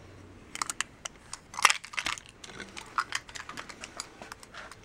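Scattered light clicks and taps of a utility knife being handled on a workbench, the sharpest about one and a half seconds in.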